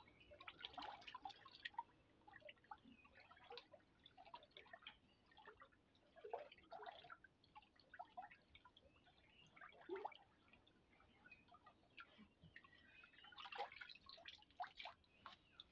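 Faint sloshing, splashing and dripping of a brown molasses-and-microbe solution as a bare hand stirs it in a plastic drum, with a cluster of drips near the end as the wet hand is lifted out.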